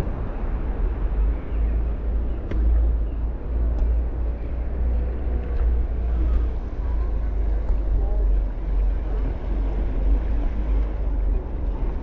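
Wind buffeting the camera microphone as a steady low rumble, with distant voices of people on the beach faintly underneath.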